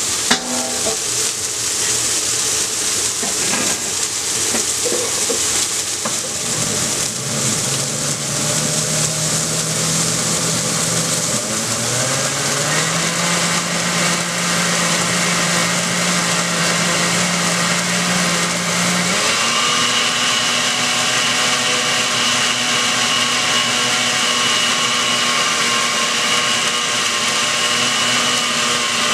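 Countertop blender puréeing a tomato-and-chile salsa, its motor steadily whirring and stepping up in speed about twelve seconds in and again about nineteen seconds in as higher speed settings are chosen. A sharp click comes right at the start.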